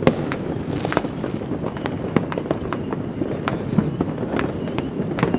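Fireworks and firecrackers going off all around: many sharp bangs and pops at irregular intervals over a continuous dense crackle of more distant explosions.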